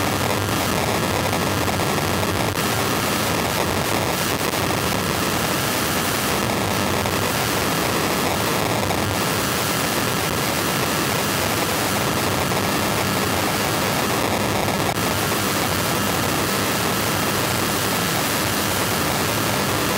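Pulsed radio emissions from mobile-phone base-station antennas made audible through a radio-frequency detector: a steady, dense hiss with no rhythm or breaks.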